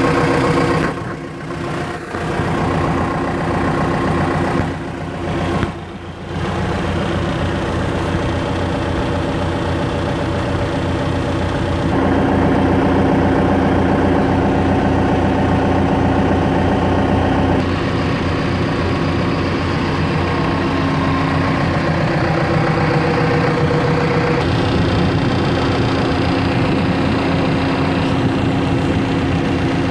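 John Deere 120C excavator's diesel engine idling steadily, briefly quieter about one and six seconds in.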